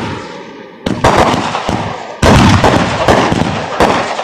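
Aerial fireworks bursting overhead: the tail of one burst, then two loud sharp bangs about one and two seconds in, each trailing off in a fading crackle.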